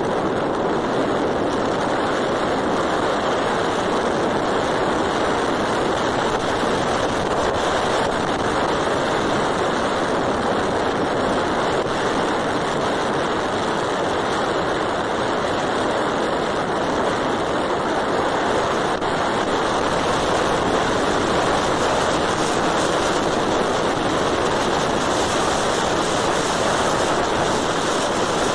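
Steady rush of wind buffeting the microphone along with road noise from a moving vehicle, an even roar with no distinct engine note.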